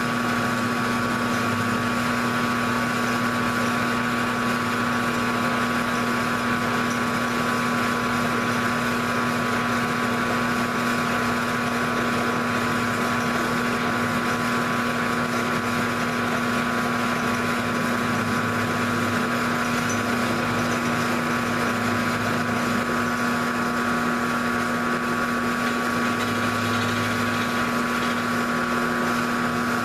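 Grizzly G0705 mill/drill running at a steady speed, a steady hum and whine, while a two-flute end mill cuts a block fed slowly past it by the hand-cranked table.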